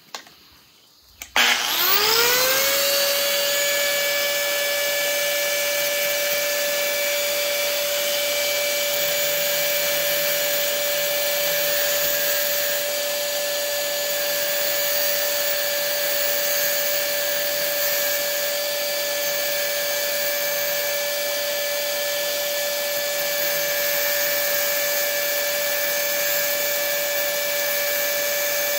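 A small high-speed electric grinding tool switched on about a second and a half in, its whine rising quickly to a steady high pitch and then running at constant speed while grinding a groove into an arrow's screw-in field point.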